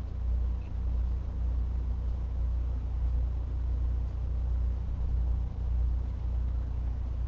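Steady low hum with a faint even hiss, unchanging throughout: background noise of the room and recording.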